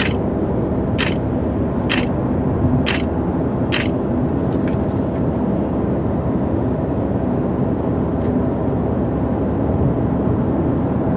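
Steady road and engine noise inside a car's cabin at highway speed. In the first four seconds a still camera's shutter clicks about five times, roughly once a second, as a photo series is shot.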